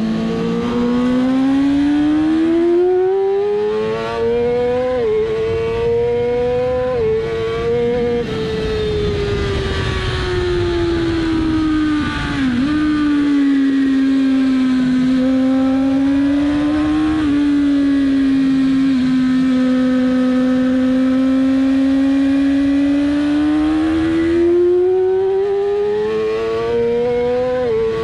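Onboard sound of a 2007 Yamaha R6's 600 cc inline-four engine at racing speed. It revs up through the gears with quick dips in pitch at each upshift, winds down as the bike slows, holds a steady pitch, then revs up again with another upshift near the end.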